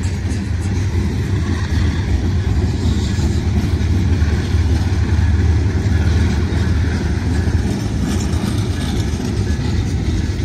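Freight train tank cars rolling past close by: a loud, steady rumble of steel wheels on the rail.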